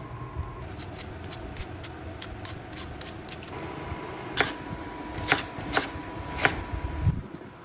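Kitchen prep clatter: small clicks and knocks of utensils, with four sharper knocks past the halfway point, over a low steady hum.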